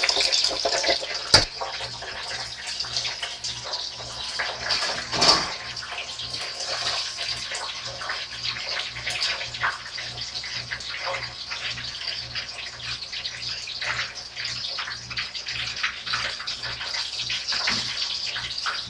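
Potato slices sizzling in deep-fryer oil: a steady hiss with dense crackling. A sharp click about a second and a half in and a louder knock about five seconds in.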